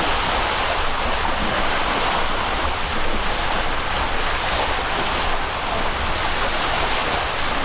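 Steady rushing noise of sea surf on a beach, with an uneven low rumble underneath.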